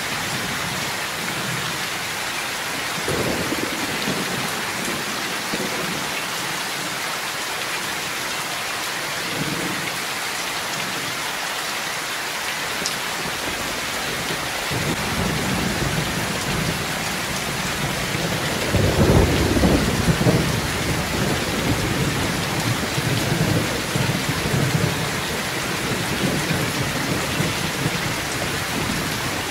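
Heavy rain pouring steadily, streaming off a roof edge, with thunder rumbling: faint low rolls early on, then a heavier rumble building about halfway through, loudest about two-thirds of the way in, and rolling on to the end.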